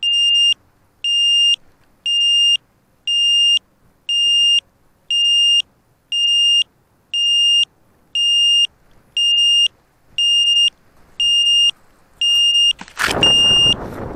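Electronic beeper on a crashed quadcopter sounding a steady high beep about once a second, each beep about half a second long, the alarm that helps find a downed model. Near the end, loud rustling and knocks as the quad is picked up.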